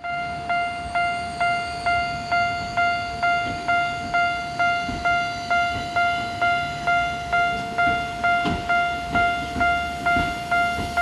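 Japanese level-crossing alarm ringing its electronic bell, a steady repeating ding about twice a second, over a low rumble with a single knock late on.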